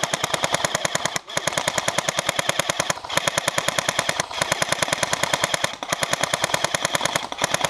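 Airsoft guns firing on full auto close to the microphone: long strings of rapid, evenly spaced shots, broken by short pauses four or five times.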